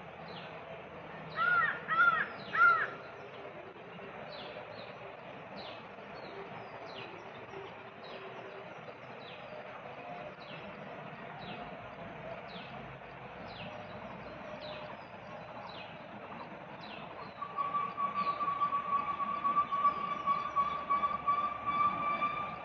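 Wild bird and insect calls: three loud, arched calls in quick succession about a second and a half in, a short high chirp repeating roughly once a second, and from about three-quarters of the way through a steady high-pitched drone.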